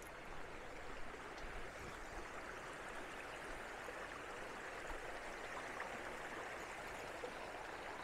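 Small, shallow stream running over rocks: a faint, steady rushing of water.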